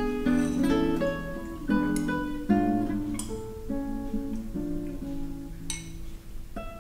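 Background music: acoustic guitar playing plucked notes and strums.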